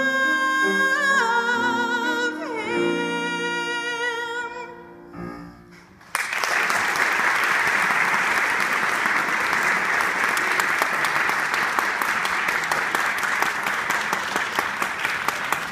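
A female soloist holds a final high note with vibrato over sustained lower chords; the note dips and fades after about four seconds. After a short pause, an audience bursts into applause about six seconds in.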